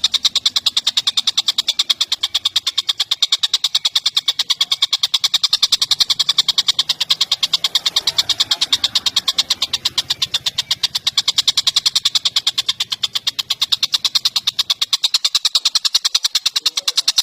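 Bird calling in a fast, unbroken string of sharp, high notes, many per second, repeated steadily.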